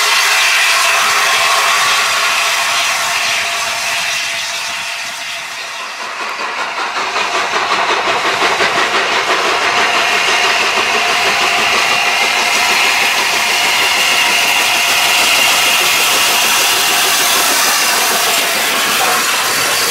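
Peppercorn A1 steam locomotive 60163 'Tornado', a three-cylinder Pacific, working a passenger train: steam hiss and exhaust beats that pulse from about a third of the way in as it approaches, growing to a steady loud running sound as it passes close by.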